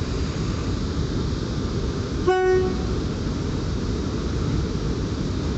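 PKP EP09 electric locomotive sounding one short horn blast a little over two seconds in, over the steady low rumble of the train rolling slowly along the platform.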